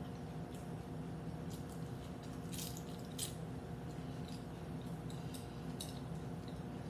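Scattered crisp crackles of a hard corn taco shell crunching as it is chewed and broken apart, loudest a little before the middle. A steady low hum runs underneath.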